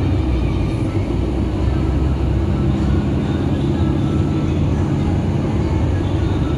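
Steady low rumble of road and engine noise heard from inside a vehicle moving at highway speed, with a faint hum of steady tones in it.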